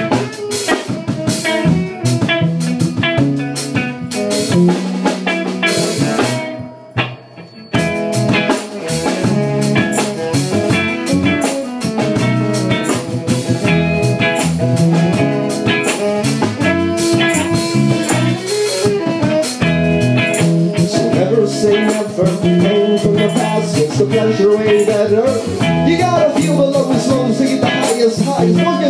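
A band playing a bluesy song on guitar and drum kit. The playing drops out briefly about six seconds in, then the whole band comes back in.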